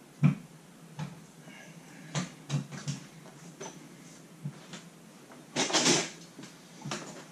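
Scattered knocks and clicks of hands handling tools and small parts on a wooden workbench, the sharpest one right at the start, with a longer rustling scrape about six seconds in.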